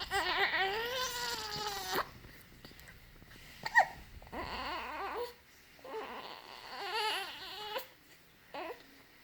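Three-week-old baby crying and fussing in short bursts: a long wavering cry of about two seconds at the start, then shorter cries, with a brief sharp squeak about four seconds in.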